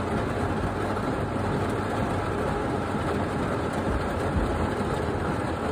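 Heavy rain falling on a truck's roof and windows, heard from inside the closed cab as a steady, even hiss with a low rumble underneath.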